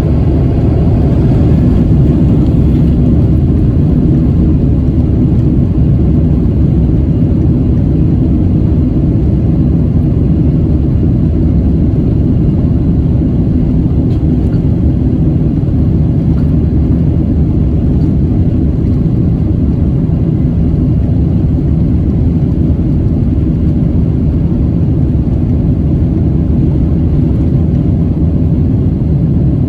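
Jet airliner heard from inside the cabin: a loud, steady rumble of engines and airframe with no breaks or changes.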